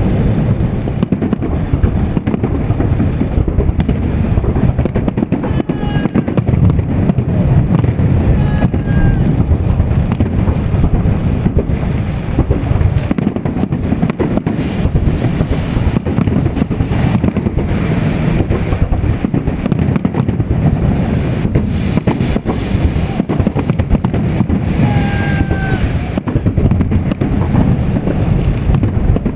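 Fireworks salute: a dense, continuous run of bangs and crackles with no pauses, a few brief high pitched sounds rising over it now and then.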